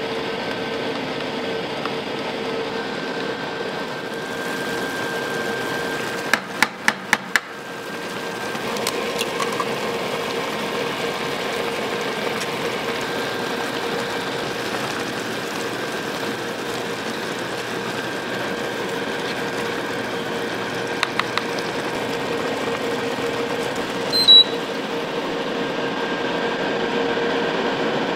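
A steady machine hum with two held tones runs throughout. Four quick sharp clicks come about six seconds in, two faint clicks near the end, and then one short high beep.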